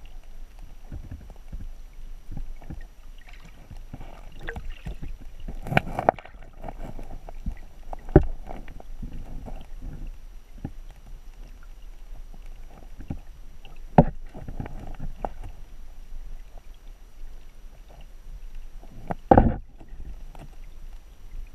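Underwater sound of a shallow cobble creek heard through a submerged camera: irregular clicks and knocks over a low rush of flowing water, with louder sharp thumps about 6, 8, 14 and 19 seconds in.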